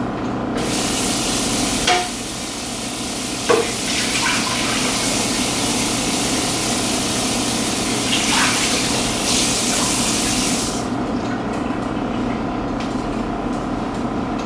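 Kitchen faucet running into a stainless steel sink while a frying pan is rinsed, with a few knocks of metal on metal; the water shuts off about ten seconds in. A steady low hum runs underneath.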